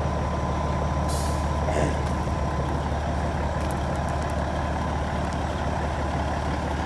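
Diesel semi truck engine idling steadily, with two short hisses of air about a second and two seconds in.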